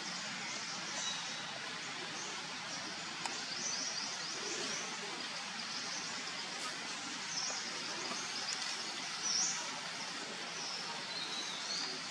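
Outdoor woodland ambience: a steady hiss with scattered short, high bird chirps.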